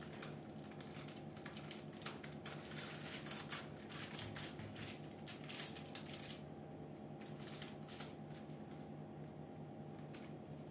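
Baking paper on a baking tray rustling and crinkling in quick short crackles as hands shape and press a pide dough boat, over a steady low hum. The crackling mostly dies away about six seconds in.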